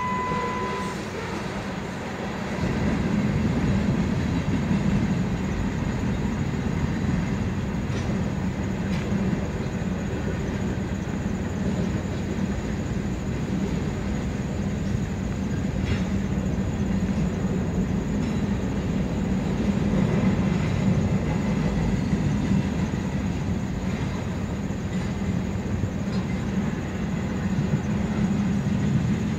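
Freight train of tank cars, boxcars and covered hoppers rolling past: a steady rumble of wheels on rail, with occasional clicks. A brief steady tone sounds in the first second.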